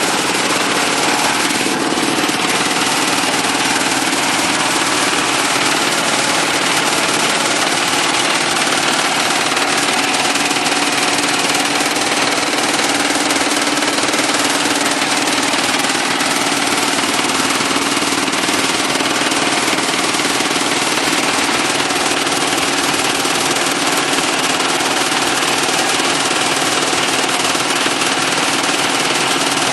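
Small concrete mixer pump running steadily on a test run: a loud, continuous mechanical din with a fast, dense rattle.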